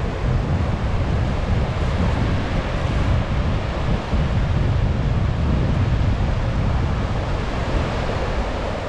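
Sea waves washing onto the shore in a steady wash, with wind rumbling on the microphone.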